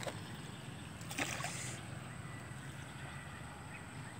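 Faint sloshing of canal water as a hooked monitor lizard paddles on the fishing line, with one brief louder noise about a second in, over a steady faint hiss.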